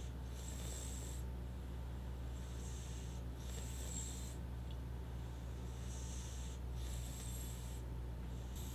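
An old cat breathing noisily through its nose: hissy, raspy breaths in and out, a pair roughly every three seconds, over a steady low hum.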